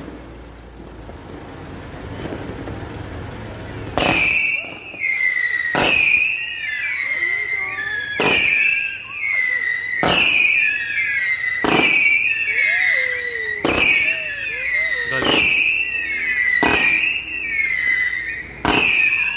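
Leegendary Fireworks Flying Dutchman 50-shot aerial cake firing shot after shot, starting about four seconds in after a quiet stretch. The shots come every second or two, each a sharp bang followed by a high, wavering whistle.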